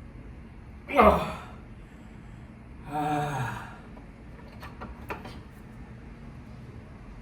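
A man grunting and groaning with effort while forcing a torque wrench round on a very tight bolt: a sharp strained grunt about a second in, then a longer low groan about three seconds in. A few light clicks follow near the five-second mark.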